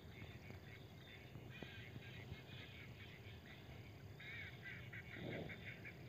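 Faint calls of a flock of ducks: quick runs of short, high call notes in two bouts, about one and a half seconds in and again about four seconds in.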